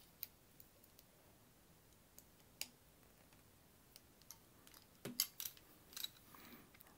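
Scattered faint clicks of a handheld key-cutting punch and a brass key blank being handled and set up to cut a depth, with a small cluster of clicks about five seconds in.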